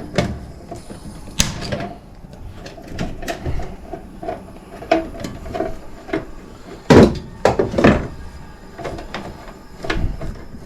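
Hand tools and metal parts being handled while an old air handler's wiring is taken apart: scattered clicks, taps and knocks, with one loud knock about seven seconds in.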